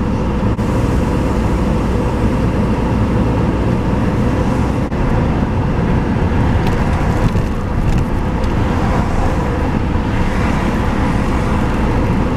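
Steady road and wind noise of a moving car, heard from inside the cabin, with a faint steady hum.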